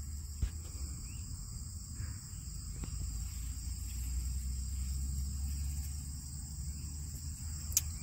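Late-summer prairie insect chorus, crickets among them, trilling steadily at a high pitch, with a low steady rumble underneath.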